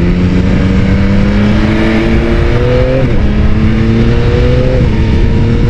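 Yamaha XSR900's inline three-cylinder engine pulling under way: its pitch climbs steadily, drops sharply at an upshift about three seconds in, climbs again and drops at a second upshift near five seconds. Heavy wind rush on the microphone runs underneath.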